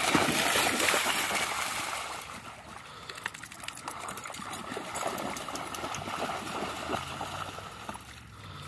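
Two dogs, a black Labrador among them, splashing as they run through shallow lake water, loudest in the first two seconds and then fading to smaller splashes and sloshing. A steady low hum comes in near the end.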